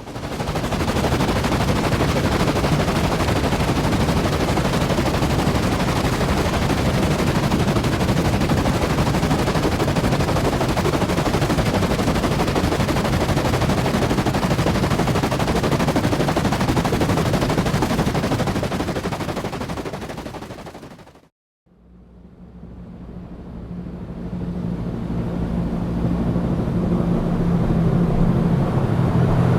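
Helicopter at close range, its rotor blades chopping in a dense, rapid flutter over engine noise. It cuts off about two-thirds of the way in; after a brief break a second helicopter fades in with a steady low hum, growing louder.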